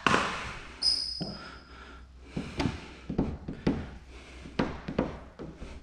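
Squeegee and hands working wet paint protection film on a car hood: a short hiss at the start, then rubbing and a run of soft knocks.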